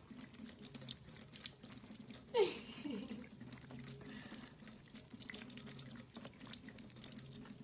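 A thin stream of water running from a tap while a cat laps at it, making many quick, irregular clicks. A short falling voice sound comes in about two and a half seconds in.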